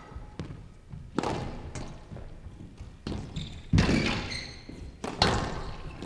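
Squash rally: the ball is hit by rackets and strikes the walls of a glass court, giving sharp hits about once a second. The loudest hits come a little after the middle.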